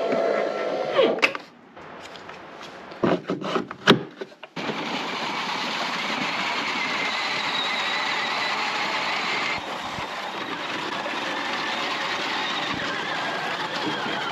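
Electric drive motors and gearboxes of a Peg Perego John Deere ride-on toy, upgraded for speed, whining steadily as it drives. Before that, a motor runs for about a second and stops, and a few sharp clicks follow.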